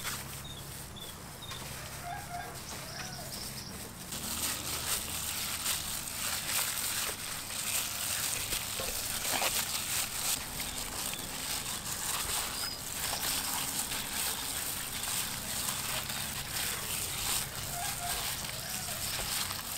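Gloved hand squishing and slapping raw chicken pieces in a wet batter of egg and cornstarch in a metal bowl. The wet squelching starts about four seconds in, after a brief rustle of a plastic glove being pulled on.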